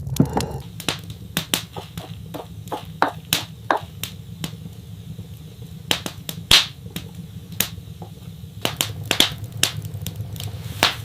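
Many sharp, irregular clicks and taps, about one to three a second, over a steady low hum.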